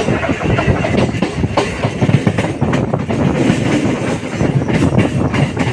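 A moving train's wheels running and clattering over rail joints and pointwork, heard from an open doorway of the coach, with a constant rumble and frequent irregular sharp clicks and knocks.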